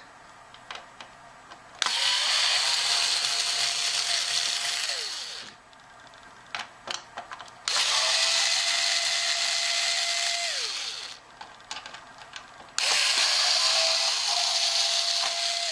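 Cordless screwdriver backing screws out of a plastic clock cabinet, running in three spells of about three to four seconds each. The motor whine falls in pitch as it winds down after the first two spells, with small clicks in the pauses.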